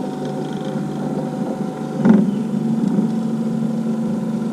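Electric trolling motor running with a steady hum, with a louder swell about two seconds in.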